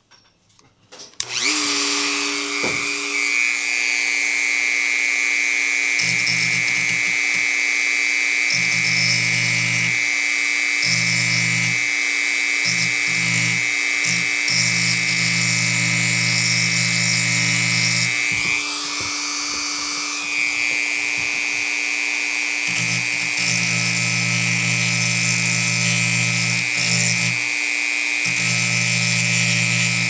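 Dremel rotary tool switched on about a second in and running with a steady high whine, its grinding stone grinding on and off against the steel can-opener blade of a Leatherman ARC multi-tool to sharpen the dull edge.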